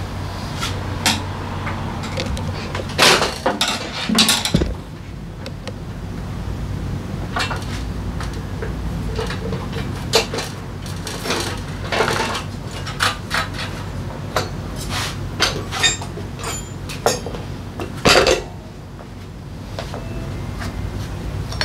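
Metal hand tools and motorcycle parts clinking and clanking at irregular intervals against the steel deck of a work lift during rear-wheel work, over a steady low hum. The loudest clatters come about three to four seconds in and again near the end.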